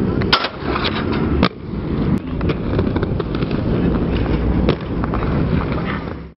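Inline skate wheels rolling on a concrete skatepark with a steady rumble, broken by several sharp clacks of landings and hits, the loudest about a third of a second in, near a second and a half, and near five seconds. The sound cuts off suddenly at the very end.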